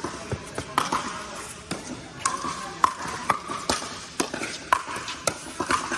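Pickleball paddles hitting the plastic ball in a quick rally: about ten sharp hits, roughly every half second, echoing in a large indoor hall with several courts in play.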